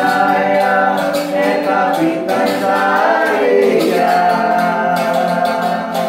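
Background music: a sung vocal line over a steady low drone, with regular percussion hits.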